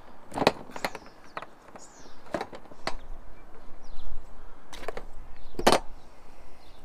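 Plastic MC4 solar cable connectors and Y-branch adapters being unclipped and pulled apart by hand: a string of about seven sharp, irregular clicks and snaps.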